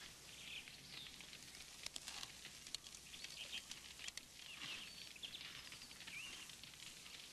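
Faint outdoor ambience: a few short, high bird chirps and scattered light clicks over a steady hiss.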